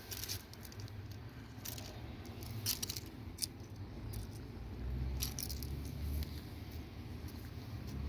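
A tuxedo kitten purring as it is stroked: a low rumble in pulsing stretches, louder from about five seconds in. Scattered light crackles, like dry leaves shifting underfoot, sound throughout.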